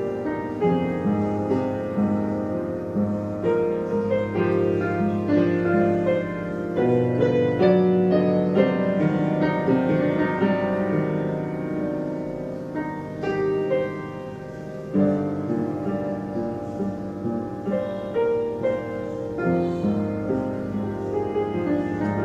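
Background instrumental music with a steady run of notes. It softens briefly about two thirds of the way through, then picks up again.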